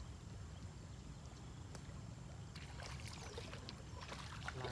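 A hooked fish splashing and thrashing at the water's surface as it is reeled in close to the bank. The splashes start about halfway through and come thicker near the end, over a steady low rumble.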